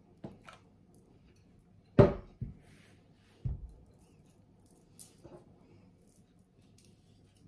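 Scattered knocks and clinks of kitchen utensils and a bowl handled on a table, with one louder knock about two seconds in and a duller one about a second and a half later.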